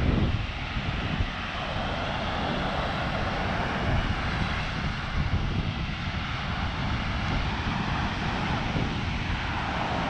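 Steady outdoor roar with wind buffeting the microphone.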